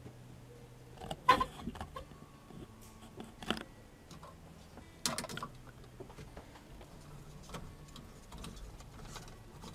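Handling noise: three sharp clicks and knocks, about one, three and a half and five seconds in, the first the loudest. Near the end comes faint scraping as an LED bulb is screwed into a lamp holder on a test board.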